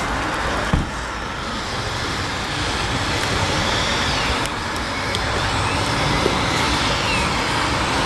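Radio-controlled scale model construction vehicles, a tipper truck and a tractor, driving on dirt: a steady vehicle-like rumble with faint rising and falling motor or gear whine. A short knock comes just under a second in.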